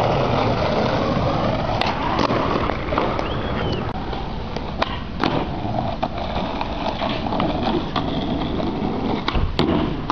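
Skateboard wheels rolling on concrete, with several sharp clacks of the board hitting the ground: about two seconds in, twice near the middle, and once near the end.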